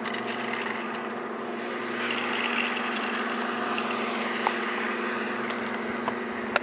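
A steady machine hum holding one pitch, joined about two seconds in by a rushing hiss, with a few light clicks near the end.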